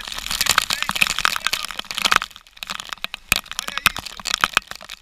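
Dense crackling and sharp pops of raindrops striking the phone's microphone in a storm. They are thick for about two seconds, then thin out to scattered pops.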